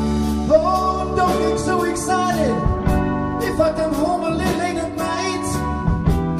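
Live band playing a slow soul ballad between sung lines: bass guitar, drums and electric guitar, with sustained notes that bend and slide over a steady beat.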